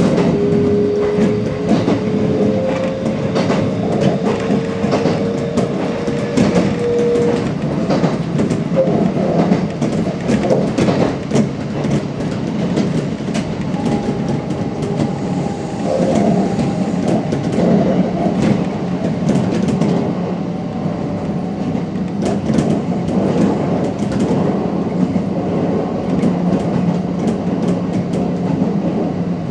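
Kintetsu Ikoma Line electric commuter train running along the track, heard from the cab: a steady rumble with wheels clicking over rail joints. A whine rises slightly in pitch over the first seven seconds or so, and a fainter higher tone sounds for a few seconds around the middle.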